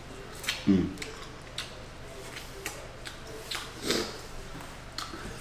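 Mouth sounds of people eating: scattered lip smacks and crunchy chewing clicks, with a brief murmured vocal sound about a second in.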